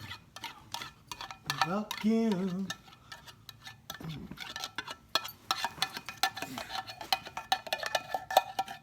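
A metal spoon clinking and scraping against a bowl as thick cream is spooned in, a rapid run of small clicks that gets busier in the second half. A short wavering vocal sound comes about two seconds in.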